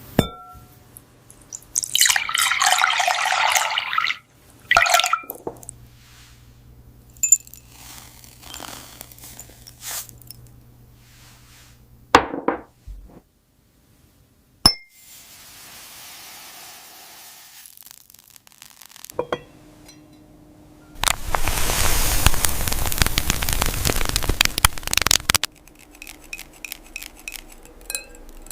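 AI-generated glass-food ASMR sounds: crisp glass clinks and a dense crackling crunch, scattered single sharp taps, then about four seconds of loud rushing noise like pouring roughly three-quarters of the way through.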